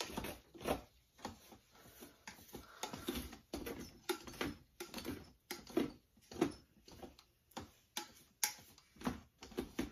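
Cooked rice being stirred in its pot with a utensil: light knocks and scrapes of the utensil against the pot, about two a second and unevenly spaced.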